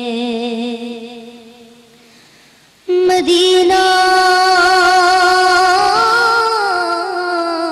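A woman's solo voice singing an Urdu devotional song into a microphone in long, wavering held notes. One note fades away about two seconds in. A louder, higher note then starts abruptly a little before halfway and is held, sliding upward near the end.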